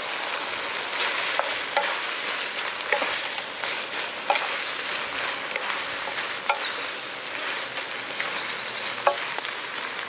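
Prawns, diced smoked beef and vegetables sizzling in a nonstick frying pan while being stirred with a wooden spatula, a steady frying hiss with the spatula clicking and scraping against the pan now and then.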